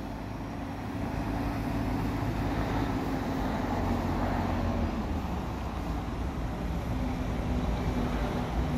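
Heavy diesel engine running steadily: an even low drone with a held hum, a little louder from about a second in.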